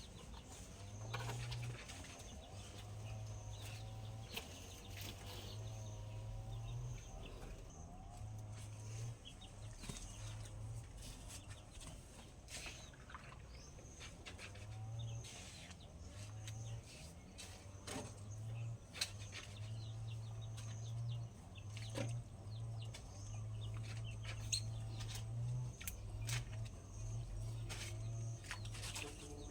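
Poultry calling and clucking, with scattered sharp clicks and an on-off low hum.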